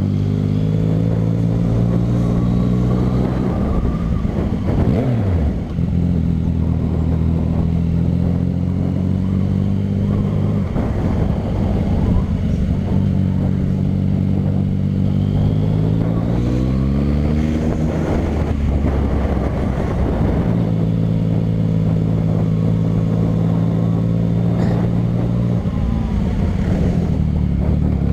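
Yamaha MT-09's inline-three engine running loud through a short Dogster aftermarket exhaust with the dB killer removed, heard while riding. It holds steady revs for long stretches, with the revs rising and falling several times as the bike accelerates and slows.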